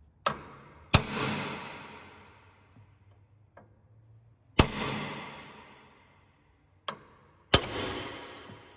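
Hammer blows on a steel steering part: three hard strikes, two of them after a lighter tap, each ringing out metallically and dying away over a second or two.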